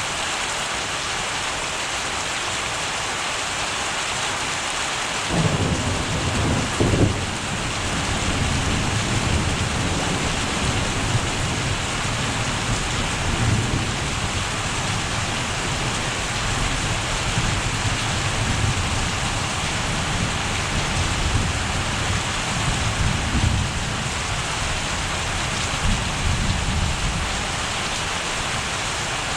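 Steady rain with thunder: a clap breaks in about five seconds in, with its loudest cracks in the next two seconds, then rumbles on in swells for the rest of the time.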